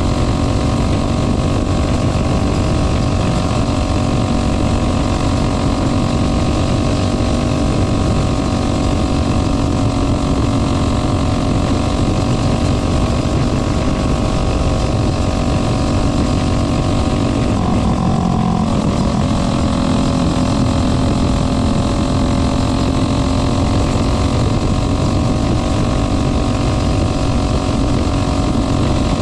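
Onboard sound of a caged dirt-track race car's engine running hard at steady high revs while lapping, with a brief dip in pitch about eighteen seconds in before it picks back up.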